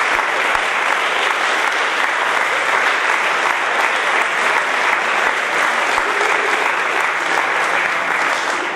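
Audience applauding steadily, a dense clapping from many hands.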